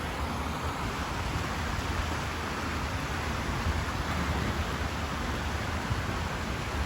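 River water rushing steadily over and around stepping stones, an even hiss with a low rumble underneath.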